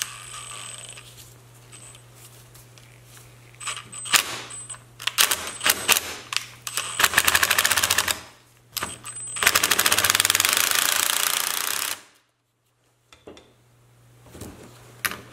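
Makita 18V cordless impact driver tightening the nut on a wiper motor's output shaft, in rapid hammering bursts: a few short blips, then two runs of about three seconds each, and a short burst near the end.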